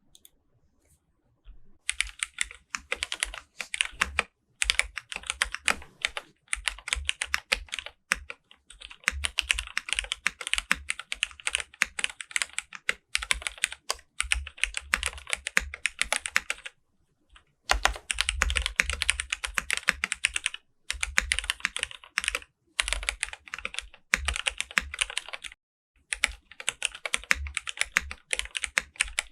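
Typing on an NCR80 R1 mechanical keyboard with lubed Cherry Hyperglide Black linear switches, CRP R4 keycaps, case foam and a tape mod. Fast runs of keystrokes start about two seconds in and are broken by brief pauses.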